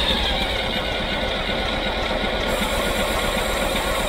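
Electric starter motor cranking an old Escorts tractor's three-cylinder diesel engine, a steady churning with a thin whine over it. The engine turns over well but does not fire, because diesel is not reaching the injectors.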